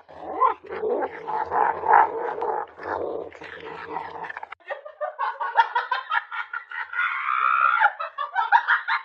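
A pet animal, dog-like, making vocal sounds: dense growly noise in the first half, then a rapid run of short pitched calls with a rising, wavering call near the end.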